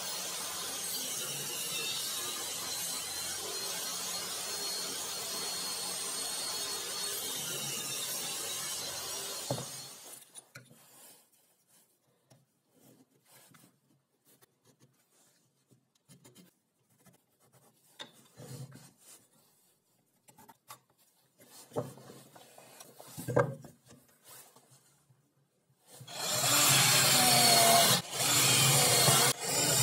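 A steady rushing mechanical noise for about the first ten seconds, then quiet handling of wood with a few small knocks and pencil scratches, then a power drill boring into a pine block, loud, with short pauses near the end.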